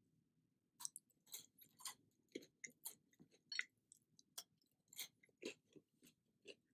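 Close-miked chewing: a run of sharp, wet mouth clicks, roughly two a second, starting about a second in.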